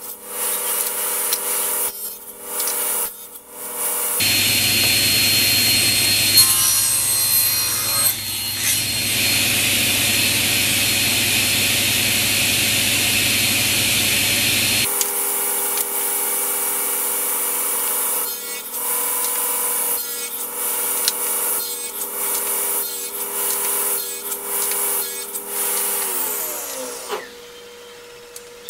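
Table saw running while a sled feeds pine boards through the blade in repeated passes, cutting box-joint slots with a rough sawing rasp. The saw is switched off near the end, and its motor note falls as the blade spins down.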